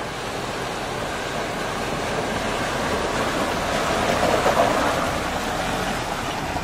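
Mahindra Thar wading through a shallow rocky river crossing, its tyres churning and splashing water and mud. The splashing swells, loudest about four to five seconds in as the vehicle passes close, then eases.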